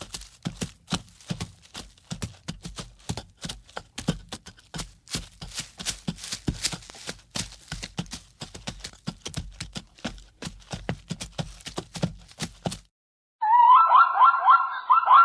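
Hooves clip-clopping in a quick, uneven run of knocks, several a second. They stop about thirteen seconds in, and after a short silence a loud, high, warbling call starts abruptly, pulsing a few times a second.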